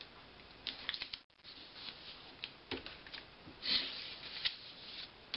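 Sheets of heavy printer paper rustling, with light scattered clicks and taps as hands handle a folded paper airplane and press tape down along it; a louder rustle comes about three and a half seconds in.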